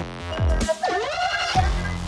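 Background electronic music with a dubstep-style beat: deep bass sweeps that drop in pitch, and a synth line that dips and rises about halfway through.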